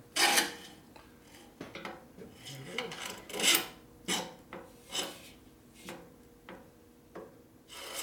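Short scraping and rubbing strokes, about a dozen and irregularly spaced, as a motorcycle control cable and its housing are worked and pushed into place by hand.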